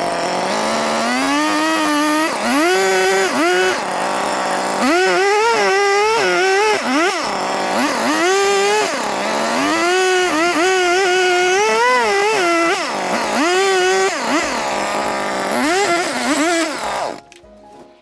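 Jonsered two-stroke chainsaw revved up and down over and over as it cuts grooves into a pine board, then cuts off about a second before the end.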